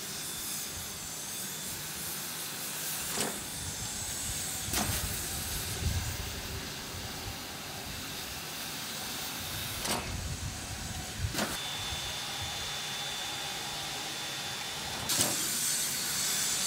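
Steady steam hiss from a standing 1925 ALCO 2-6-2 steam locomotive, with about five short, sharp metallic clicks scattered through it.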